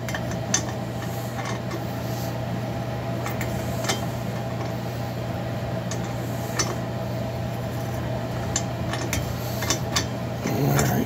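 Light metallic clicks and clinks, scattered and irregular, as a steel T-bar tap handle is turned and reset on a large pipe-thread tap cutting new threads in a chainsaw cylinder's spark plug hole, over a steady low machine hum.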